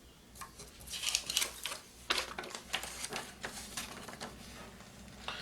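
Packaging of a digital postal scale being opened and handled: a run of irregular crackles, rustles and clicks from about half a second in, easing off after about four seconds.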